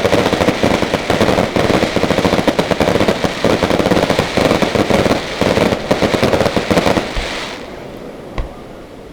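Fireworks going off: a dense, rapid crackling of many small explosions for about seven seconds that then dies away, followed by a single separate bang.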